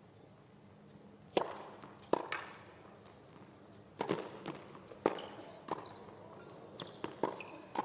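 A tennis rally on a hard court: sharp cracks of rackets striking the ball and the ball bouncing, about one every half second to second, coming quicker near the end as the point closes at the net.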